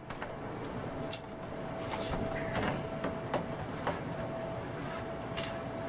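Scattered small clicks and scrapes of hands handling the metal chassis and plastic parts of a Sony CMT-HPZ9 mini stereo as it is taken apart.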